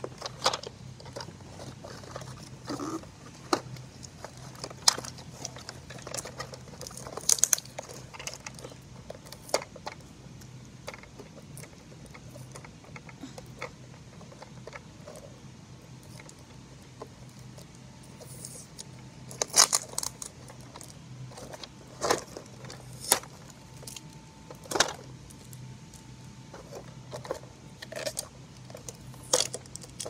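Hands handling a plastic toy recycle truck and its cardboard box backing. Scattered clicks, knocks and small plastic rattles, with a denser run of them about twenty seconds in, over a faint steady low hum.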